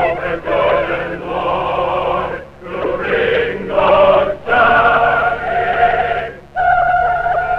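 Mixed choir singing a spiritual-style song, with phrases breaking off and then long held chords in the second half, a short gap about six and a half seconds in before the next held chord. The sound is narrow and thin, with no highs, as on an old film soundtrack.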